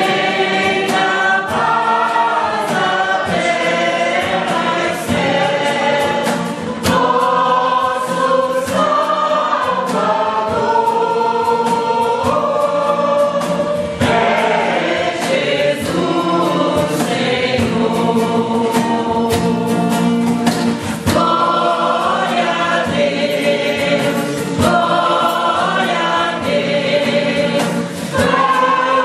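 A Baptist church choir of men and women singing together, in long held notes.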